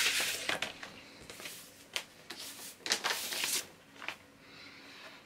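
Paper inner sleeves and a cardboard LP jacket rustling and sliding as a vinyl record is pulled out of its sleeve. The sound comes in several short bursts, the loudest at the start and around three seconds in.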